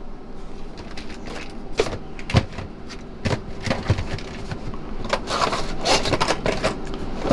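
Handling noise from boxed and packaged tools being moved about on the shelves: scattered knocks and clacks, growing into denser rattling and rustling in the last couple of seconds, over a faint steady hum.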